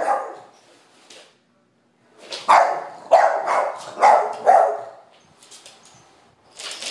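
Boston Terrier barking at a vacuum cleaner: one bark right at the start, then four barks in quick succession between about two and five seconds in.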